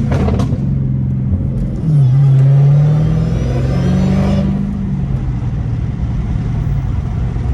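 Dodge Challenger Hellcat's supercharged 6.2-litre HEMI V8 pulling away, its note climbing with a louder surge about two seconds in, then settling into a steady run.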